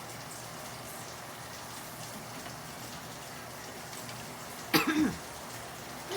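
Steady hissing background noise, broken about a second before the end by one short, loud sound from a person's voice.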